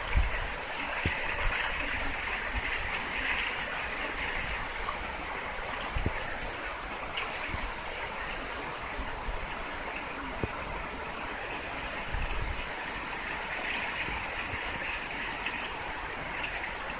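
Typhoon wind and rain heard through a narrow gap in an opened apartment window: a steady rush that swells in gusts twice, with low rumbling and a few brief thumps of wind on the microphone.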